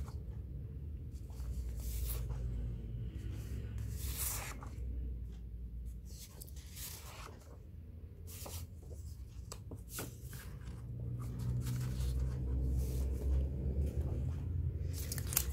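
Stiff paper diary refill pages being handled and leafed through: a series of short paper rustles and slides a second or two apart, over a low steady background rumble.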